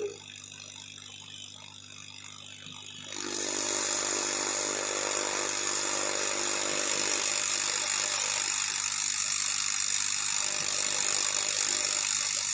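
Hot-air rework station blowing a steady hiss of hot air onto a hard-drive circuit board while a diode is soldered in. The airflow comes on about three seconds in, after a faint low hum.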